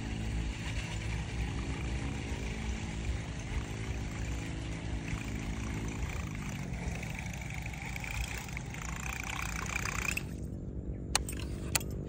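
Baitcasting reel cranked steadily, retrieving a buzzbait whose blade churns across the water surface. The whirring and churning stops abruptly about ten seconds in and is followed by two sharp clicks. A low, steady engine hum runs underneath.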